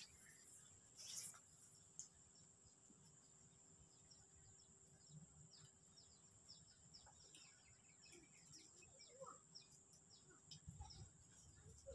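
Faint outdoor ambience: a steady high-pitched insect drone with many small, scattered bird chirps over a low background hum.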